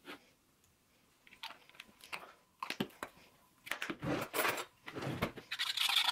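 Clicks and knocks of small bottles and spice jars being handled and set down on a countertop, then from about halfway a utensil scraping and clattering in a plastic bowl, beating eggs with cream and spices.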